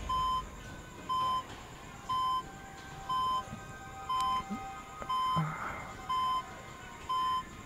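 Bedside patient monitor beeping at a steady pace: one short, high-pitched beep about once a second.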